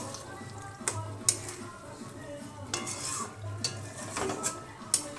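A metal utensil stirring chicken curry in a cooking pot, scraping and knocking against the pot several times.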